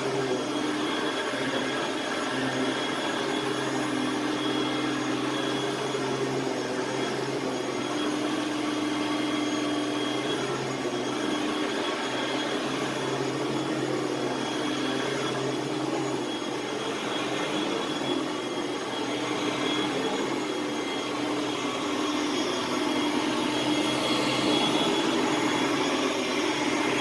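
Hoover Platinum Collection bagged upright vacuum cleaner running steadily, a motor hum and whine over a rush of air, growing a little louder near the end.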